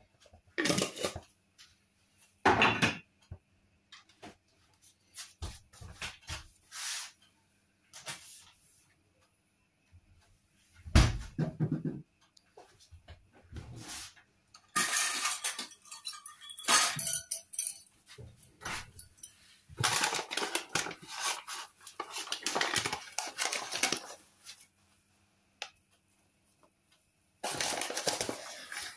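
Intermittent kitchen handling sounds: utensils clattering as a drawer is opened and rummaged through, and a bag rustling as flour is poured onto grated potato. There are separate knocks and clinks at first, then longer spells of rustling and clatter in the second half.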